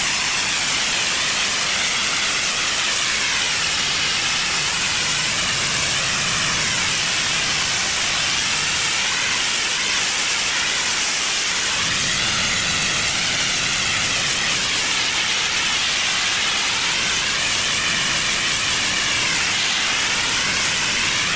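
Pressure washer blasting a dirty driveway: a steady, loud hiss of high-pressure water spray on pavement.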